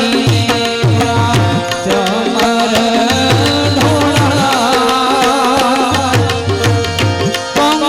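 Devotional bhajan music: tabla keeping a steady rhythm, its bass strokes sliding down in pitch, under sustained harmonium tones and a wavering melody line.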